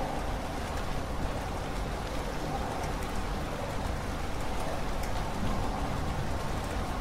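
Steady rain falling: an even hiss with fine drop ticks.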